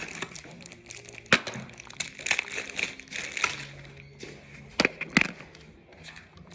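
Device packaging being handled: crinkling and rustling, with a sharp snap about a second in and two more close together about five seconds in.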